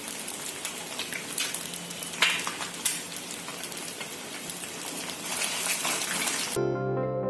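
Eggs frying in hot oil in a pan with added coriander leaves: a steady sizzle with scattered crackles and pops. It cuts off suddenly near the end, when plucked-string music starts.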